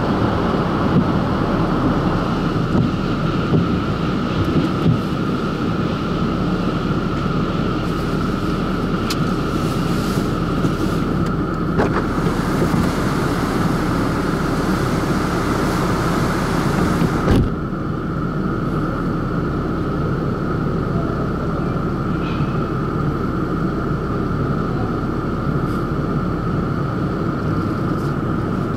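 Drive-through car-wash equipment running, heard from inside a car's cabin: a steady rumble with a constant whine and a spray hiss. The hiss cuts off suddenly about two-thirds of the way through, leaving the rumble and whine.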